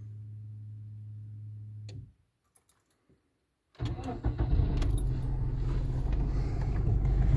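Car engine idling with a steady low hum. About two seconds in, the sound drops out completely; nearly two seconds later the engine comes back as a louder rumble with a few clicks, growing louder toward the end.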